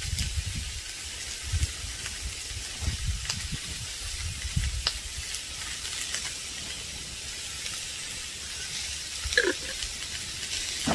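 Chopped soup vegetables and onions sizzling as they fry in a Dutch oven, a steady hiss with irregular low bumps and a few light clicks.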